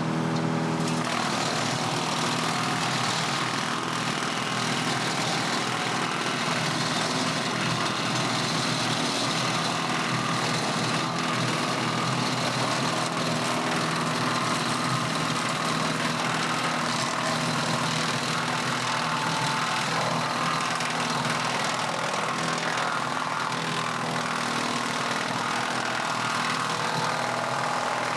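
An engine running steadily at constant speed, an even hum with a hiss over it.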